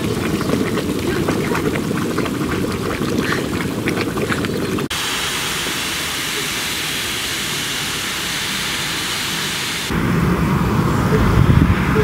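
Volcanic fumaroles venting steam: a loud, steady white-noise hiss. It changes abruptly twice, about five and ten seconds in, as different vents are heard.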